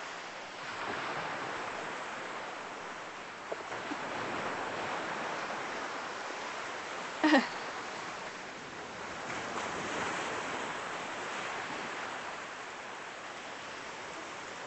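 Ocean surf washing onto a beach: a steady rushing noise that swells and eases. About seven seconds in, a brief sound with a falling pitch cuts through, louder than the surf.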